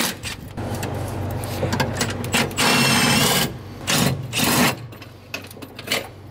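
Compact cordless impact wrench spinning nuts off the studs of a battery-cable fuse holder. It runs in bursts: a lighter run from about half a second in, the loudest hammering burst around three seconds in with a whine over it, and a shorter burst about a second later.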